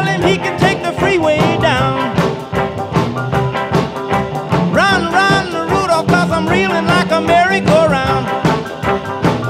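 Rock and roll music recording with a steady beat and melody lines that bend in pitch.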